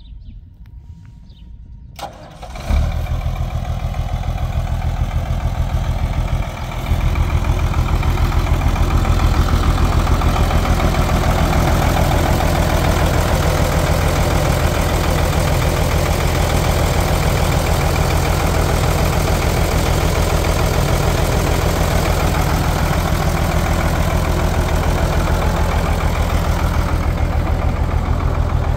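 Ford truck's six-cylinder diesel engine with a mechanical inline injection pump starting about two to three seconds in, after a sharp click, then running at a steady idle. It gets louder at about seven seconds in and runs on steadily.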